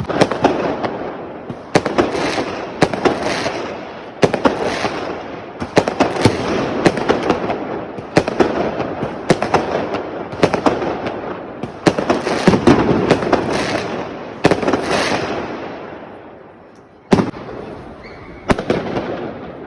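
Fireworks going off one after another: sharp bangs, each followed by a burst of crackling and hissing every second or two. The bursts ease off towards the end, then two more sharp bangs come.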